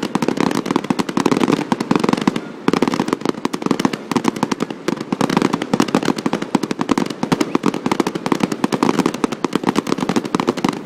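Fireworks display: a dense, rapid barrage of bangs and crackles with hardly a gap, easing off briefly about two and a half seconds in.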